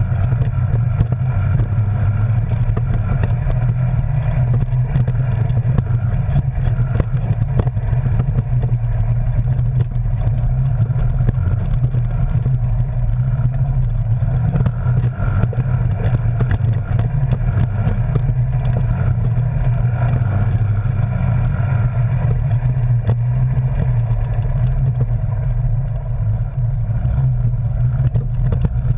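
Arctic Cat Wildcat Sport side-by-side's engine running with a steady low drone while driving, with frequent rattles and knocks as the machine bounces over rutted dirt trail.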